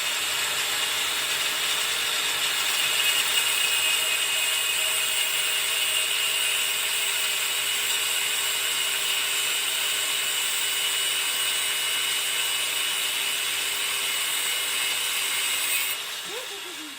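A power cutting tool running steadily through the governor pin of a Honda GX110 engine, splitting it in two, then spinning down with a falling pitch near the end.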